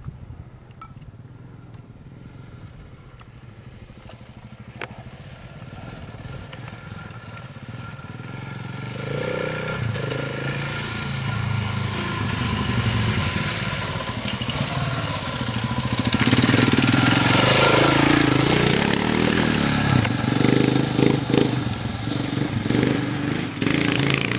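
Dual-sport motorcycle engine, faint at first and growing louder as the bike approaches, loudest as it passes close by about two-thirds of the way through. The pitch rises and falls with the throttle, then goes choppy and uneven as the bike climbs away over rock ledges.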